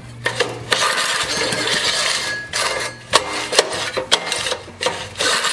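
An old Briggs & Stratton single-cylinder engine being cranked over by hand with its recoil starter, several pulls in a row with a rattling, clinking clatter. It turns over without firing: the modern replacement coil gives no spark.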